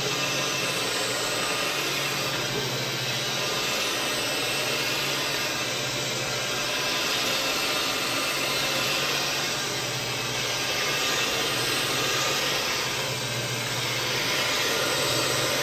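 Carpet-cleaning machinery running steadily: a continuous rushing machine noise over a constant low hum, with no breaks.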